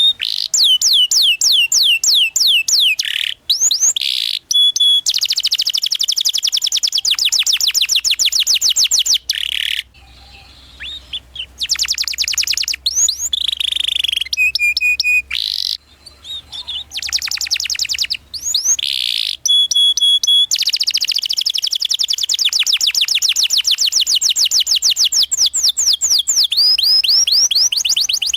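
A domestic canary in full song, delivering long rolling trills of very fast, repeated downward-sweeping chirps, with a few short breaks between phrases.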